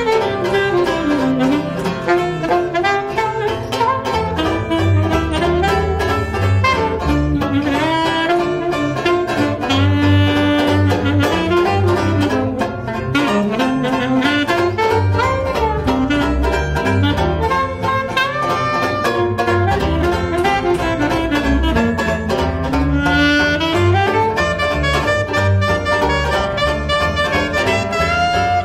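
Saxophone playing an improvised jazz solo, its melody line rising and falling, over strummed banjo chords and a walking double bass.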